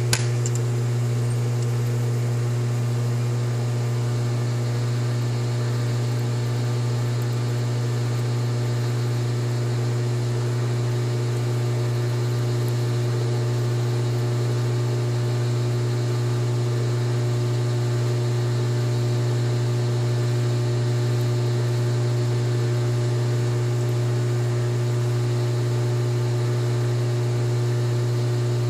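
Metal lathe running steadily with a low, unchanging electric-motor hum while a chamber reamer is fed into a rifle barrel.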